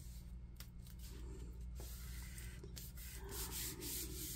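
Hands rubbing freshly glued paper flat onto a cardstock tag: a soft, uneven paper scuffing that grows a little about three seconds in. A steady low hum runs underneath.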